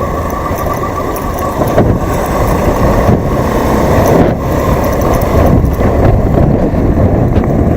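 Wind rush and motorcycle riding noise on a helmet-mounted external microphone: a loud, steady, dense rumble.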